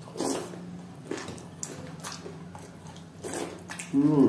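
Close-miked wet chewing and mouth smacks of a person eating fried potato with watery fermented rice (panta bhat) by hand: a string of short smacks and squelches. A short hummed voice sound comes near the end.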